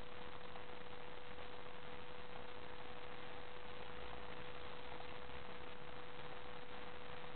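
A steady hiss under one constant humming tone.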